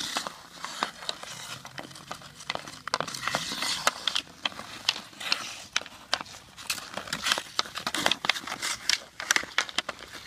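Hockey sticks clacking against a puck and skate blades scraping on ice: a run of sharp, irregular clicks over a scratchy hiss.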